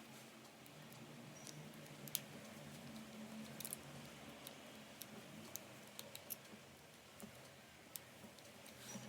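Faint, sparse clicks and light taps of small parts being handled during the assembly of a scale RC truck's rear axle and differential, over a low background hum.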